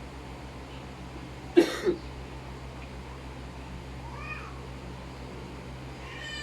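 Cat meowing: a loud short call about one and a half seconds in, a fainter meow rising and falling in pitch about four seconds in, and another starting at the very end, over a steady low hum.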